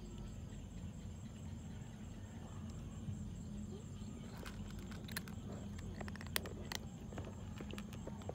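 Cats crunching dry kibble from a metal tray, heard as scattered sharp crunches and clicks, mostly in the second half. Under them runs a steady high insect drone and a low hum.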